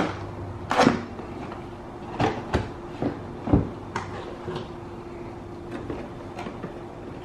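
Cardboard packaging box being handled and opened: a series of knocks, scrapes and flap noises as the carton's lid is pulled open. The loudest come about a second in and about three and a half seconds in, with smaller taps near the end.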